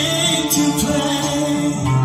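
A man singing a slow song into a handheld microphone, amplified, over a backing track played from a laptop through a small studio monitor speaker, with steady held bass notes beneath the voice.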